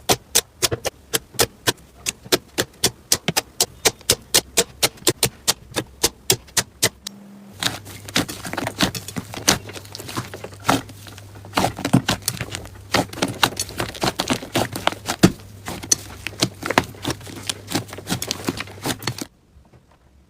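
Hands playing with slime: a fast, even run of sharp clicking pops about five a second, then denser, irregular crackling and popping that stops abruptly near the end.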